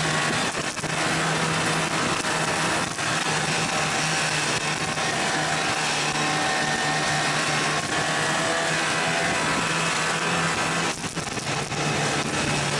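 Snowmobile engine running steadily at cruising speed, heard from the sled being ridden, under a dense rush of wind and track noise. The level dips briefly near the end.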